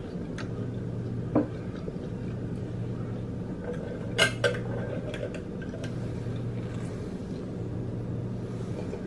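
Cutlery clinking against a plate a few times during a meal, loudest twice in quick succession about four seconds in, over a steady low hum.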